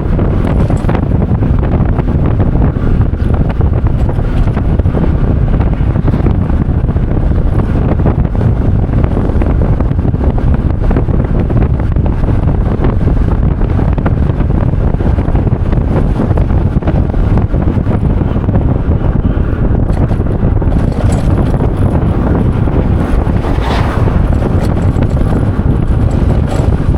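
Loud, steady wind buffeting the microphone: a dense low rumble with no let-up.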